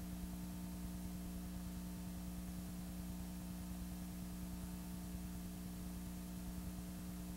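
Steady electrical mains hum with a layer of hiss and nothing else: the empty soundtrack of a silent home movie.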